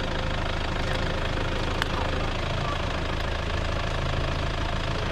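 Toyota Hilux 3.0 diesel engine idling steadily, with a single faint click about two seconds in.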